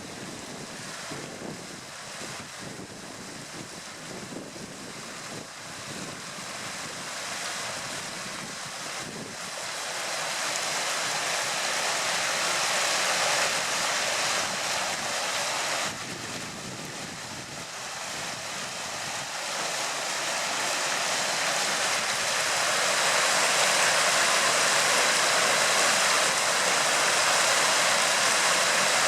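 Steady rushing of flowing water, growing louder over the first dozen seconds, dipping suddenly about halfway through, then building again.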